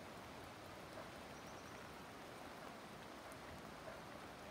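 Light rain falling steadily, a faint even hiss.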